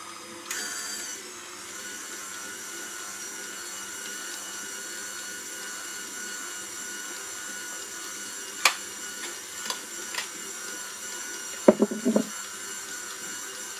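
KitchenAid stand mixer running steadily with a motor whine while it kneads pogaça dough as a fresh cup of flour is worked in. A few sharp clicks come about nine to ten seconds in, and a short cluster of knocks comes near the end.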